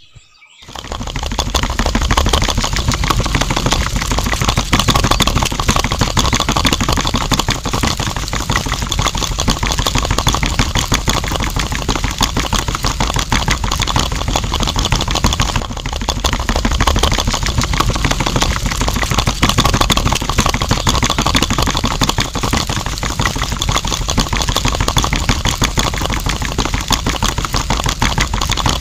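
Small electric motor of a homemade miniature concrete mixer switched on about half a second in and running steadily, turning a tin-can drum of cement slurry with a fast, even rattle.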